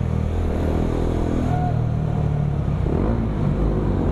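Bajaj Dominar 400's single-cylinder engine running through an aftermarket Akrapovic M1 slip-on exhaust while riding, its pitch shifting with the throttle.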